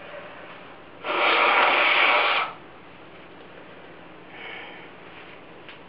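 A person blowing hard out through the nose for about a second and a half, clearing saline rinse water from the nasal passages after a neti-bottle rinse, then a shorter, weaker blow a few seconds later.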